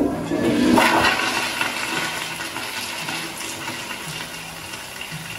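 Commercial flushometer toilet flushing: a loud rush of water that peaks about a second in, then slowly tapers off as the bowl refills.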